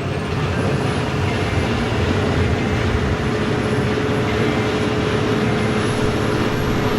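Heavy snow-removal equipment running steadily: a loud, even roar with a steady hum through it.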